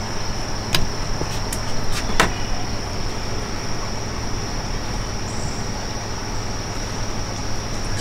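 Steady background ambience: a continuous high-pitched whine over a low hum, with two sharp clicks about one and two seconds in.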